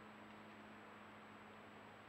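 Near silence: a trail camera's microphone hiss, with a faint steady hum and a thin high whine.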